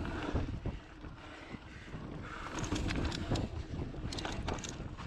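Mountain bike riding fast down dirt singletrack: wind rushing over the camera microphone and tyres rumbling on the dirt, with clusters of sharp rattling clicks from the bike, the densest about four seconds in.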